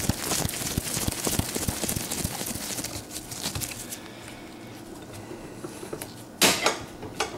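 Quick metallic clicking of a nut driver turning the screw of a hose clamp on a dishwasher pump hose, then one louder handling noise about six and a half seconds in as the hose and clamp are gripped by hand.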